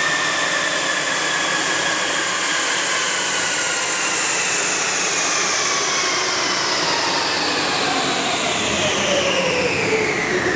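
Smart ForTwo on a rolling-road dyno coasting down after a run: a whine from the spinning rollers, tyres and drivetrain falls slowly in pitch and drops faster near the end. A large cooling fan keeps up a steady rush under it.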